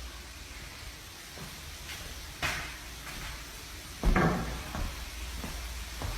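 A door being handled: a sharp click about two and a half seconds in, then a heavier thud about four seconds in, followed by a few softer knocks.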